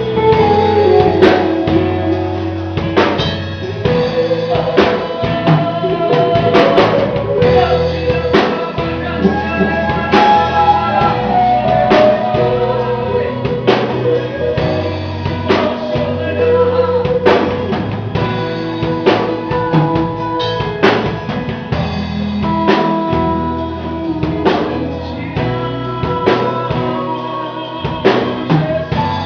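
Christian worship song: singing over a drum kit and band.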